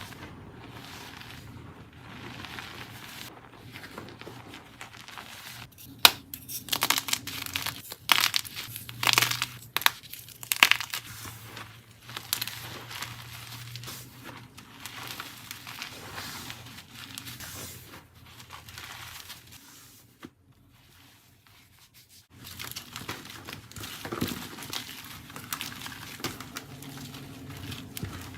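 Blocks of dyed BSN gym chalk being crushed, crumbling with dense crunching and crackling and many sharp cracks, loudest a few seconds in. The crushing drops out for about two seconds near the end, then resumes.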